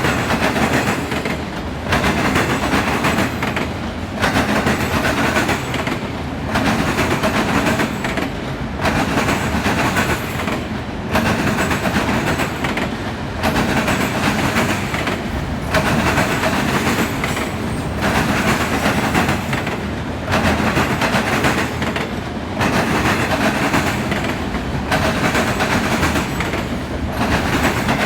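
Freight train of auto rack cars rolling past, steady wheel-on-rail rumble and clatter with a short dip about every two seconds as each car goes by.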